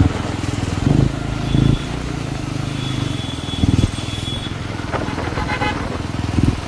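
Motorcycle riding along a road: a steady low engine and road rumble with a few brief louder surges. A vehicle horn toots briefly about five and a half seconds in.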